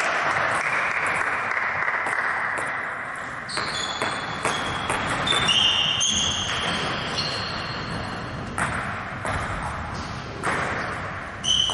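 Table tennis balls clicking on tables and bats in a large hall: scattered sharp ticks from a few seconds in, each with a short high ping. Before them a broad rushing noise fades away over the first few seconds.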